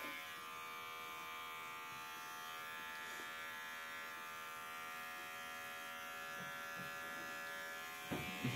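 Electric hair clipper running with a steady buzz as it shaves the last short hair from a baby's scalp.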